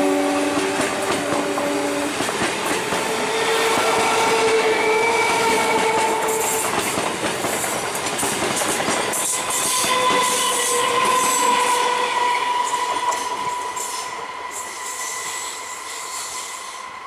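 Electric local train (EMU) passing close by, its wheels and carriages making a dense, loud rail clatter, with a chord-like horn that stops about two seconds in and a steady whining wheel squeal later on. The noise fades over the last few seconds.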